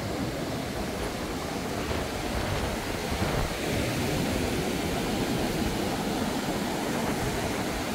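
Ocean surf breaking and washing up the beach, a steady rushing noise that grows a little louder about three seconds in.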